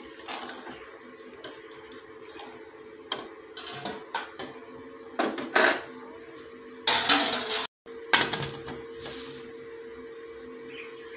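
Steel ladle stirring chana gravy in a pressure cooker, then loud metal clattering a few seconds later as the cooker's lid is handled, put on and locked. A steady low hum runs under it.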